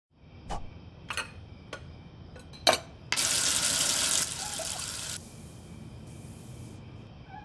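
A few sharp clicks and knocks, then water running hard from a tap into a sink for about two seconds, dropping to a lighter flow before it shuts off.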